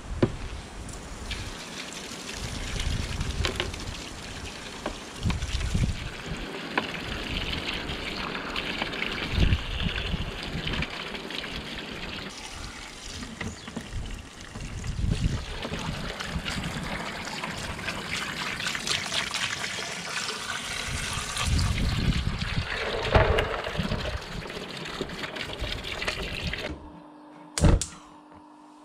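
Water from a garden hose running and splashing into a plastic tub of live yabbies as they are rinsed and the muddy water is tipped out. Near the end it cuts off abruptly to a quiet steady hum with one sharp click.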